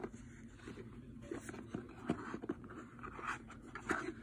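Hands handling a rigid cardboard gift box: scattered light scrapes and taps as fingers push and grip at its tight-fitting slide-out drawer.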